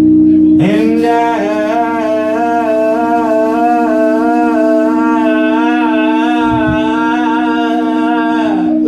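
Live band music: a singer holds one long note with a gentle vibrato for about eight seconds over a steady sustained chord, the voice stopping just before the end.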